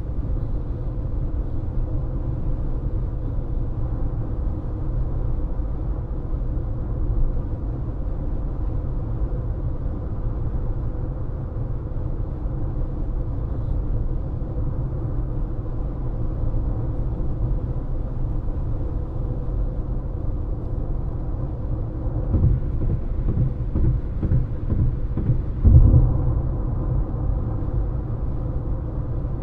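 Steady low road and tyre rumble heard inside a moving car, with a faint steady hum running under it. Late on comes a run of thumps, the loudest about three seconds before the end.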